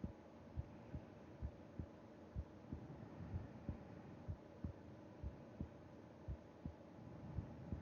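Human heartbeat heard through the chest wall of a sleeping person: slow, regular lub-dub pairs of low thumps, about one pair a second, a calm resting rhythm.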